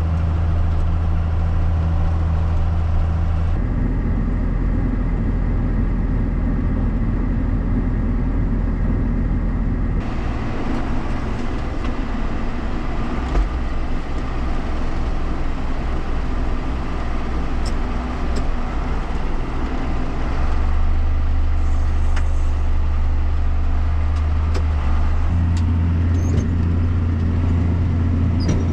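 Farm machinery engines running steadily, heard across several short clips cut together, the engine's pitch and the sound's character changing abruptly at each cut.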